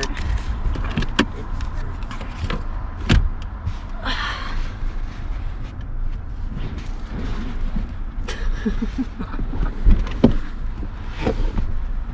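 A foam mattress pad being shifted, bent and pressed into place in the back of a truck cab: scattered bumps, thumps and rustles, the loudest knocks about 3 and 10 seconds in, over a low steady rumble.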